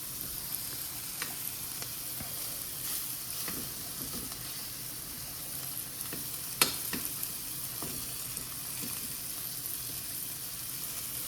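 Wagyu top sirloin steak sizzling steadily in hot butter and garlic in a frying pan, with a few light clicks and one sharp click about six and a half seconds in.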